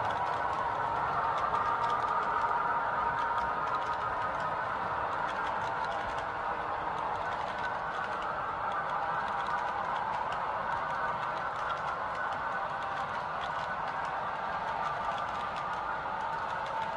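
Model freight train's boxcars rolling past on the track: a steady whir of small wheels on metal rail with faint clicks, easing off slightly after the first few seconds.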